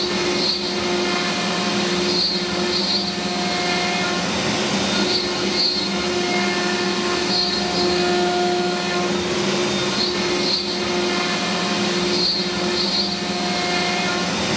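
CNC router spindle running a spiral carbide router bit through 3/4-inch birch plywood: a loud, steady machine whine with several tones that fade in and out every second or two as the bit cuts.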